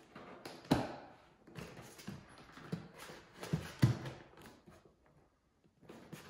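Hands fitting and pressing a foam fuselage section of a radio-controlled model jet into place: irregular knocks, taps and rubbing, the loudest knocks a little under a second in and near four seconds in.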